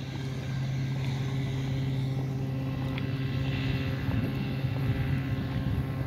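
A motor running with a steady low hum that holds one pitch throughout.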